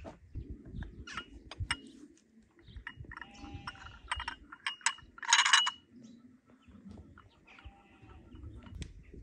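Farmyard animals calling, with scattered light clicks and knocks. A short, loud, noisy burst comes a little past the middle.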